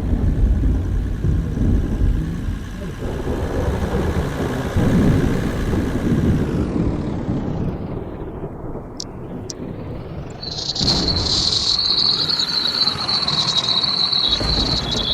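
A loud low rumble that starts suddenly and slowly fades over about ten seconds. About eleven seconds in, a steady high chirring of crickets sets in.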